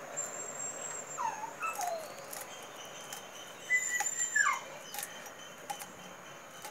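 An animal whining: several short calls that slide down in pitch, the loudest about four seconds in, with thin high chirping calls alongside.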